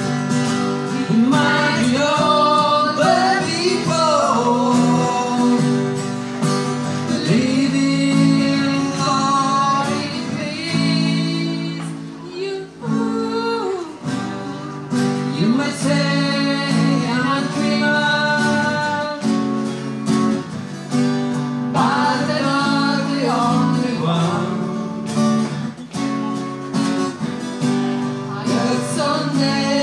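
Live acoustic guitar strummed under singing vocals, a duo performing through a small PA speaker.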